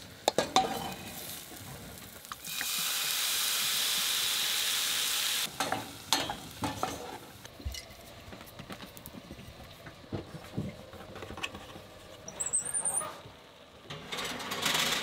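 Kitchen cooking sounds: a wooden spoon stirring and scraping vegetable stuffing in a stainless steel pot, and a steady hiss for about three seconds early on. Later come scattered light knocks as a glass bottle is used as a rolling pin on puff pastry on a wooden board.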